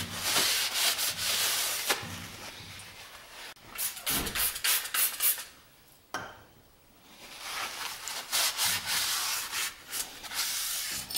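Paper towel rubbed briskly over greasy metal mill parts in quick wiping strokes, wiping grease off. The strokes stop for a couple of seconds about halfway through, then start again.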